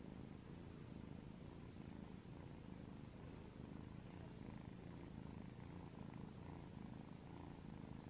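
Tabby kitten purring, a faint, steady, low purr, as it is stroked on the head.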